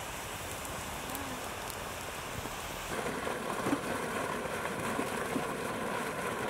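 Water gushing from an irrigation pipe outlet and splashing onto flooded ground, getting louder about three seconds in after a quieter, steady hiss.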